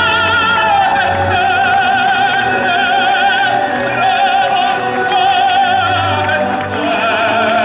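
Operatic singing with orchestral accompaniment: a sustained voice with a wide vibrato over the orchestra.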